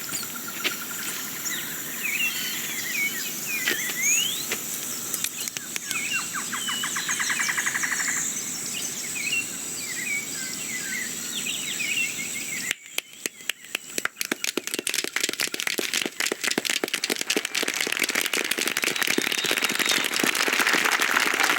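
Animated-film nature sound effects: birds chirping and an insect's rapid trill over a steady outdoor hiss. About 13 seconds in, the sound cuts to a dense clatter of many small clicks that grows steadily louder.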